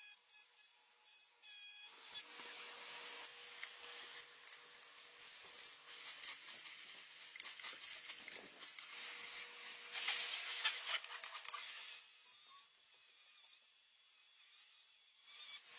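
A flat rasp scraping back and forth on a carved wooden walking cane, in rough, uneven strokes that are loudest about ten seconds in. Before it, for about two seconds, a handheld rotary tool whines as it cuts into the wood.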